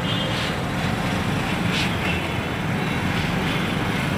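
Dense city road traffic: a steady low rumble of engines and tyres from cars and scooters moving slowly alongside, with a few brief higher-pitched sounds over it.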